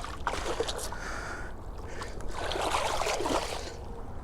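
Water splashing in two bursts of about a second each, the second starting a little past two seconds in, over a steady low rumble.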